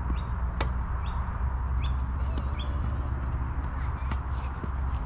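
Tennis balls struck by racquets in a doubles rally: sharp pops about half a second in and a louder one near the end, with fainter hits in between. Short bird calls chirp now and then over a steady low rumble.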